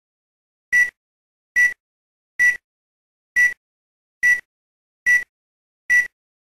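Film-leader countdown beeps: seven short, high-pitched beeps, one a little under every second, with silence between.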